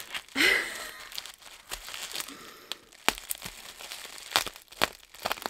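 Bubble-wrap packaging crinkling and crackling as it is held down and slit open with a craft knife, with scattered sharp clicks. The loudest rustle comes about half a second in.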